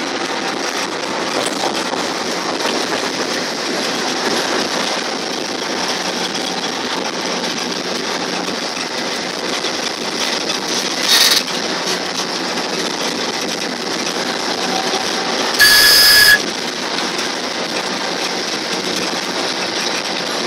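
A train running steadily across a steel truss railway bridge, heard from the driver's cab: an even rumble and rush of wheels on rails. A short louder sound breaks in about 11 s in, and a brief high-pitched tone sounds for under a second around 16 s.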